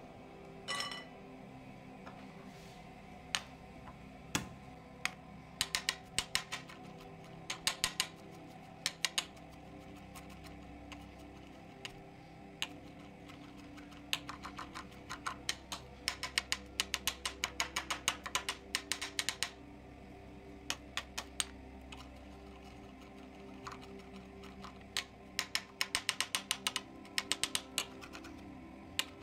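Kitchen knife chopping and mincing garlic on a hard cutting board: bursts of rapid, sharp taps of the blade against the board, with short pauses between the runs.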